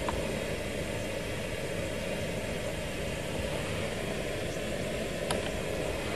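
Steady low rushing noise from Hans Otto König's instrumental transcommunication apparatus, the background noise in which the session listens for spirit voices. A faint click comes about five seconds in.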